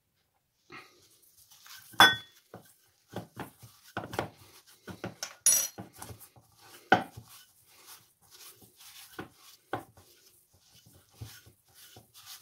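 Hands massaging a spice rub into a raw pork neck in a stainless steel bowl: irregular knocks, slaps and scrapes of the meat and hands against the metal bowl, the loudest clatter about two seconds in.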